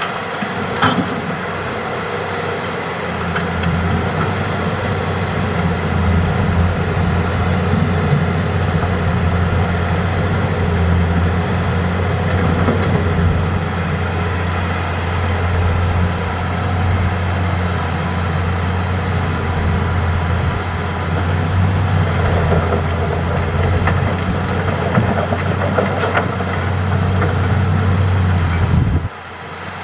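Heavy diesel engine of a Hitachi excavator running steadily while it works, a deep continuous hum with a few brief knocks. The engine sound drops abruptly near the end.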